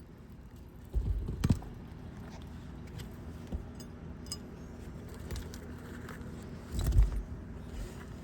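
Roofing work on asphalt shingles: metal tools and nails clinking and being handled, with a sharp click about a second and a half in and two heavier low knocks, about a second in and near the end.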